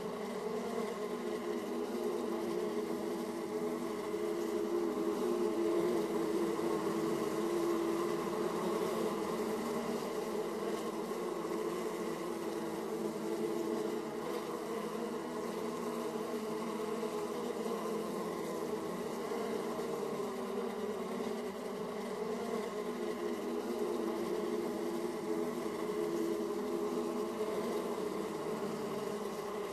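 Honeybees humming at the hive entrance: many bees flying in and out make a steady, dense buzz centred in a low-mid pitch, swelling a little and easing now and then.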